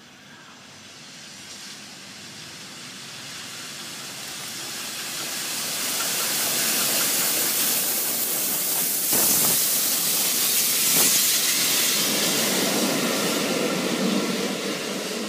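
Two GWR steam locomotives, Hall-class 4965 and Castle-class 5043, coupled together and running light engine, approach and pass close by. The noise builds steadily, is loudest as they pass, with two brief louder moments, and gives way to a lower rumble near the end as they draw away.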